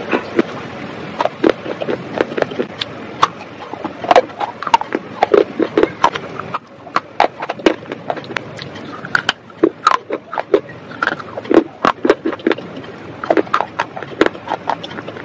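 Close-miked crunching and chewing of baked clay pieces, with sharp, irregular crackles several times a second.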